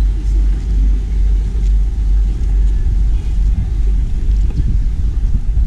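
Loud, steady low rumble aboard a speedboat: the boat's engines running at low speed, mixed with wind on the microphone.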